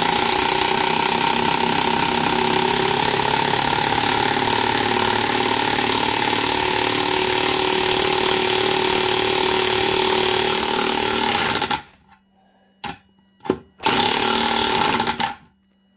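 Corded electric impact wrench hammering, surprisingly loud, as it drives a very hard bolt into a wooden block through a 12-point impact socket, for about twelve seconds. After a pause come two short blips and a last burst of about a second and a half as the bolt is seated.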